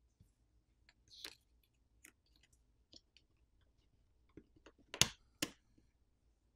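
Faint, scattered clicks and taps of small plastic parts as a smartphone's internal plastic cover is unclipped and lifted off the frame and a plastic pry pick is worked against it, with two sharper clicks about five seconds in.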